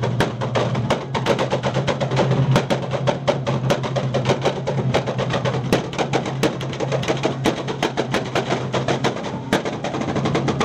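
A car engine held at a steady high rev while its exhaust crackles and bangs rapidly and unevenly. It stops right at the end.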